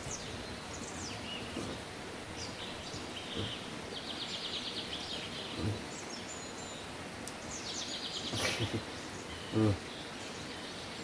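Countryside ambience: scattered bird chirps and two rapid, evenly pulsed trills, one about four seconds in and one about eight and a half seconds in. A short low voice-like sound comes about nine and a half seconds in.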